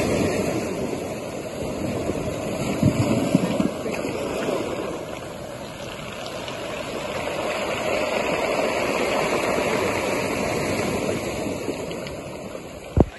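Ocean surf breaking and washing onto a rocky cobble shore, the rush of water swelling and easing. A few soft knocks come about three seconds in, and a single sharp thump comes just before the end.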